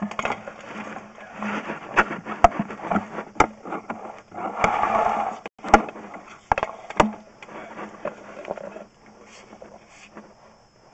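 Sewer inspection camera and its push cable being pulled back through a drain pipe: irregular sharp clicks, knocks and scrapes over a low steady hum.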